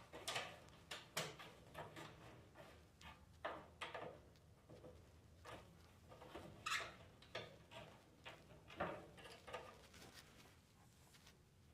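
Faint, irregular clicks, taps and rustles of hands and tools working on a torpedo heater, taking its cover off to reach the fuel line.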